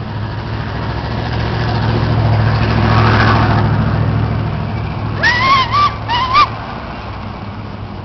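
A motor vehicle passing, its engine hum building to a peak about three seconds in and then fading. Later, a few short high-pitched cries from a person's voice, rising and falling in pitch.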